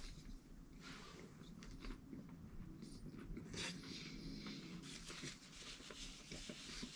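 Faint close-up chewing of a bite of fried chicken sandwich, with soft irregular crunches.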